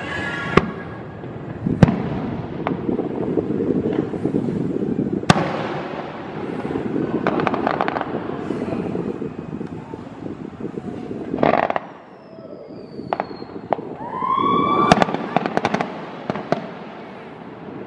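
Fireworks display: aerial shells bursting with sharp bangs every few seconds, dense crackling bursts in between, and a thin falling whistle shortly before a run of bangs near the end, over a continuous low rumble.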